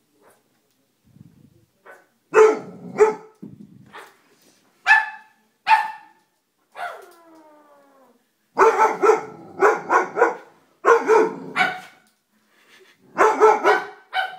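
Doberman barking in alarm at a stuffed toy dog: single barks spaced about a second apart starting about two seconds in, a drawn-out whine falling in pitch about seven seconds in, then quick runs of barks.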